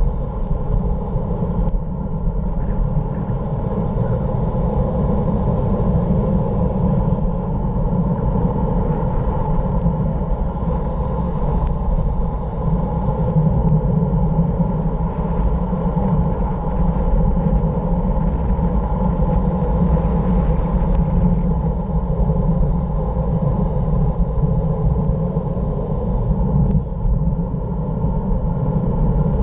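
Wind rushing over the microphone of a bicycle-mounted action camera on a fast road descent: a steady low rumble, with a higher hiss that comes and goes every few seconds.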